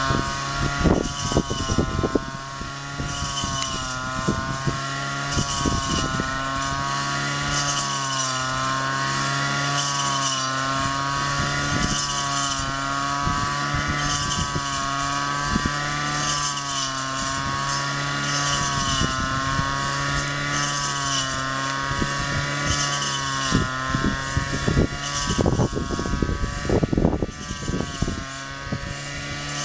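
Honda GX35 four-stroke brush cutter engine running at high speed, its pitch wavering up and down every couple of seconds, with scattered short clicks and crackles that grow more frequent near the end.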